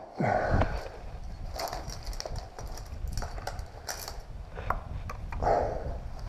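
Climber's body and gear scraping and clicking against the rock while squeezing up a narrow tunnel, with a steady low rubbing rumble. A short falling grunt comes about half a second in, and a heavy breath near the end.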